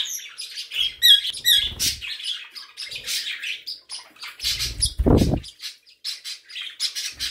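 Small pet birds of mixed species chirping and chattering together in quick, overlapping calls. There is a low rustling thump close by about two seconds in, and a louder one about five seconds in.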